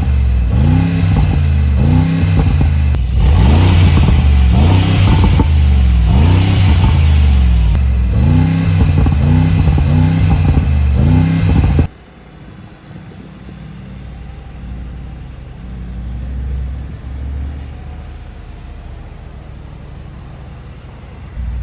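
Mercedes-AMG G63's twin-turbo 4.0-litre V8 being revved in repeated throttle blips, about one a second, for the exhaust sound check. About twelve seconds in, the sound drops abruptly to the engine running quietly at a steady low pitch.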